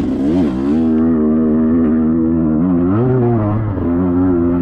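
KTM 125XC two-stroke single-cylinder dirt bike engine under throttle, its pitch dipping about half a second in and again around three seconds in, then climbing back and holding steady.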